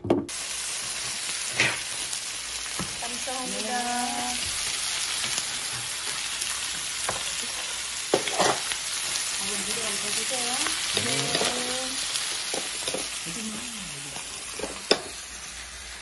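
Sliced meat with kimchi and onion sizzling on a hot cast-iron plate: a steady, loud fizz that starts suddenly and eases a little near the end, with a few sharp clicks.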